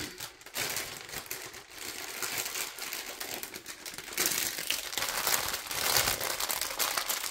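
Small plastic bags of diamond painting drills crinkling as they are handled and put away, louder from about four seconds in.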